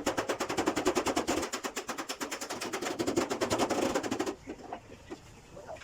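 Rapid mechanical hammering, about ten strikes a second, typical of a power hammer working a vehicle's door panel; it stops about four seconds in, followed by a few faint knocks.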